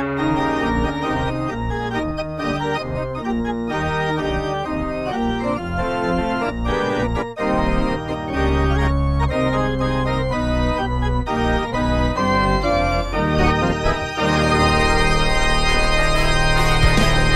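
Arena organ playing a quick tune of many short notes, part of an NHL team's goal celebration music.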